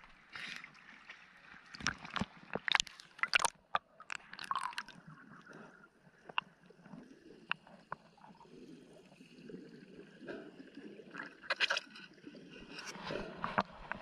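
Water sloshing and gurgling, with clusters of sharp splashes about two seconds in and again near the end, from a snorkeler moving through the water.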